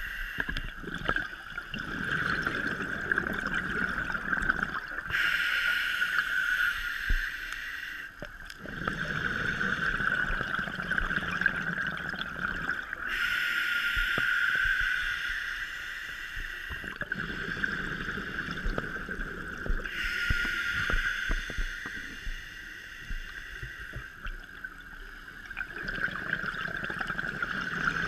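Scuba diver breathing through a regulator underwater: hissing inhalations alternate with bursts of gurgling exhaled bubbles, about one breath every seven or eight seconds. A steady high whine runs underneath throughout.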